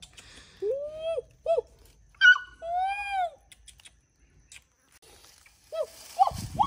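A series of short animal calls, each rising then falling in pitch, several in the first half and more near the end with a quiet gap between; a low rumble comes in near the end.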